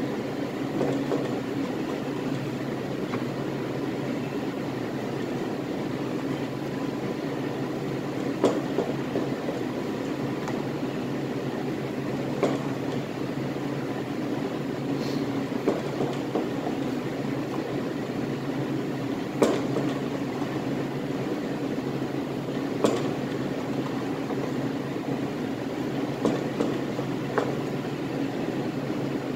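Steady mechanical hum of room machinery, with about seven sharp knocks spread through it as a 10-inch scimitar knife slices a beef rib roast into steaks on a plastic cutting board.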